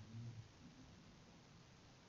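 Near silence: room tone with a faint steady hiss and a brief faint low sound in the first half second.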